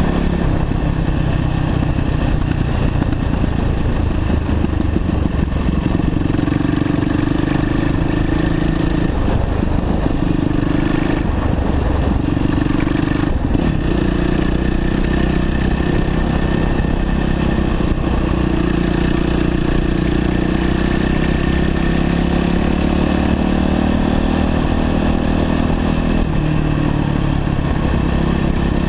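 2009 Yamaha YZ450F's single-cylinder four-stroke engine running steadily as the dirt bike rides down a dirt road, its pitch shifting a few times.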